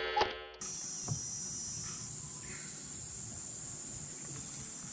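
A brief electronic jingle for under a second at the start, then a steady high chorus of insects chirping from the wooded bank.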